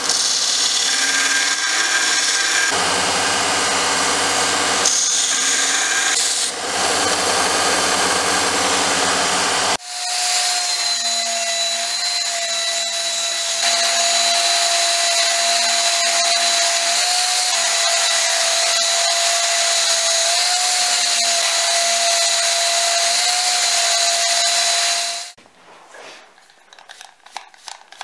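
Bandsaw cutting epoxy-resin handle scales for the first ten seconds or so, then a handheld power file (narrow-belt sander) running with a steady whine as it sands the knife handle, stopping about 25 seconds in; quieter, uneven rubbing follows near the end.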